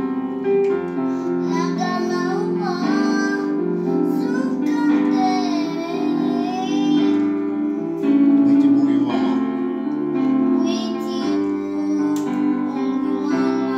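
Electronic keyboard playing sustained chords, with a voice singing a slow melody with vibrato over them.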